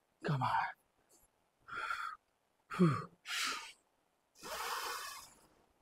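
A man straining under a heavy barbell squat on a Smith machine: a short grunt falling in pitch, a hard breath, a second falling grunt and breath about three seconds in, then a long forceful exhale near the end.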